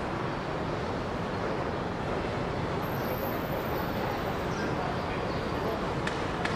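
Steady ambient noise of a station concourse, an even rumble and hiss with no clear single source, with a couple of faint clicks near the end.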